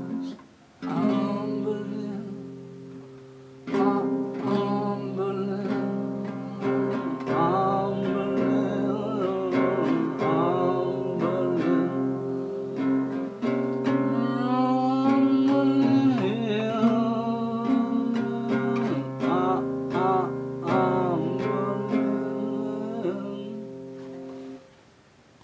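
Acoustic guitar played, ringing chords and notes with short breaks about a second in and around three seconds in, then continuous playing that stops near the end.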